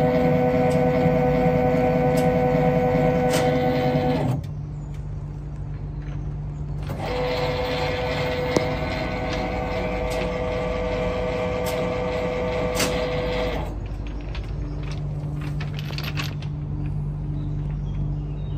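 On-load tap changer motor drive unit (HM SHM-D) running with a steady whine for about four seconds, stopping, then running again for about six and a half seconds, with one sharp click partway through the second run. Each run is the drive turning the shaft to the tap changer for one tap-change step. A low steady hum continues in the pauses.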